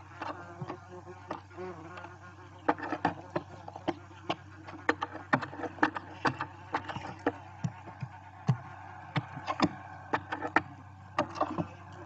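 Barn owls in a nest box: frequent sharp clicks and scratches as owlets and an adult shift and step on the nest debris, over a faint hiss and a steady low electrical hum from the nest camera.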